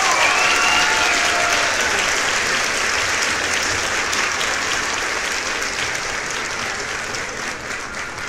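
Crowd applauding, a dense patter of many hands clapping with a few cheers near the start, slowly fading away.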